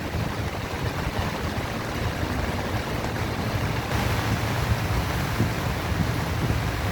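Steady rushing noise of rain falling, with a low rumble underneath.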